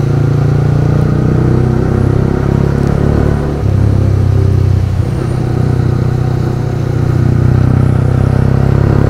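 Yamaha R15 V3 motorcycle's single-cylinder engine running steadily while riding. The level dips briefly about three and a half and five seconds in.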